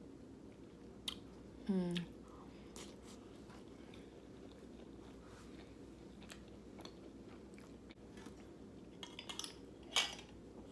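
A person chewing a mouthful of food, with soft mouth noises and small clicks. Near two seconds in there is one short voiced sound from the eater, and a few sharp clicks and crunches come near the end.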